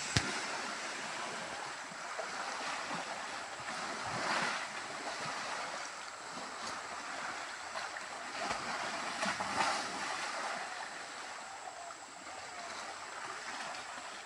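Rushing muddy stream water with splashing from two elephants wrestling in it. The water swells louder about four seconds in and again around nine to ten seconds.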